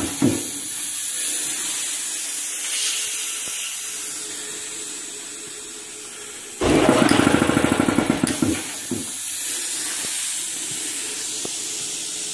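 Two-stage air compressor run by hand-pressing the contactor of its magnetic starter: a steady hiss of air that slowly fades, then, about six and a half seconds in, the electric motor and pump start suddenly and run for about two seconds with rapid pulses before stopping, and the hiss returns.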